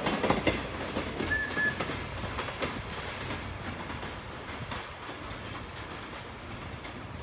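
Steel wheels of a passenger car and caboose clicking over the rail joints with a rolling rumble, fading steadily as the train moves away.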